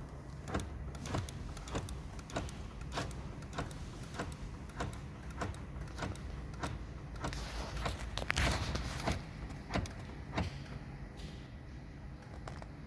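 Mazda power door lock actuators clicking on and off by themselves, over and over, about once every 0.6 s, with a longer, louder mechanical noise about eight seconds in. This self-cycling of the central locking is the symptom of a malfunctioning door latch.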